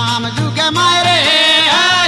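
Rajasthani Marwari devotional bhajan music in the desi veena style: a steady low beat under a melody that bends and slides in pitch.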